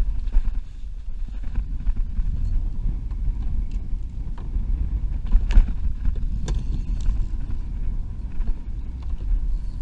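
Wind rumbling on the camera microphone while a kayak drifts on choppy water. Small water slaps and knocks come against the plastic hull, with one louder knock about five and a half seconds in.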